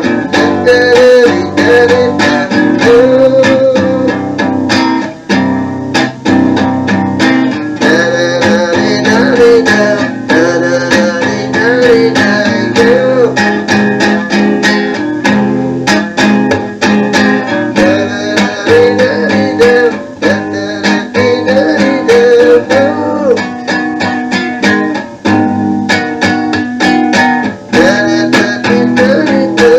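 A song playing: plucked and strummed guitar with a wavering melody line over it, and nothing heard above the upper treble.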